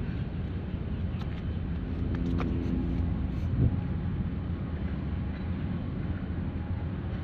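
Steady low rumble of wind on the microphone and distant engines, with a faint engine hum rising out of it for about a second and a half, starting about two seconds in.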